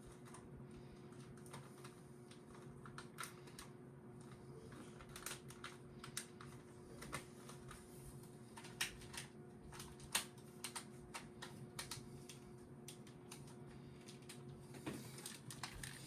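Light, irregular clicks and taps of small hard plastic toy parts being handled and set down, over a faint steady hum.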